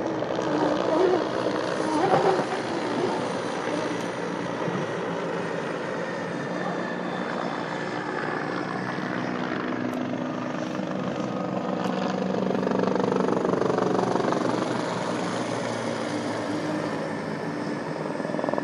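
Distant drone of racing powerboat engines mixed with a helicopter's rotor and engine, running steadily with slow glides in pitch. It swells a little past the middle.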